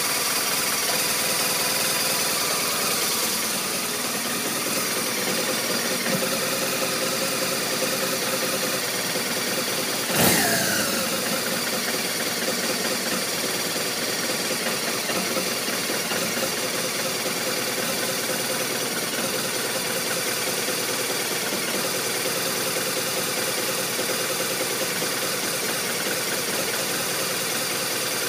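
BMW R1200RT motorcycle's boxer-twin engine idling steadily, the rough idle the bike is being recorded for. About ten seconds in comes a single sharp click, followed by a tone falling in pitch.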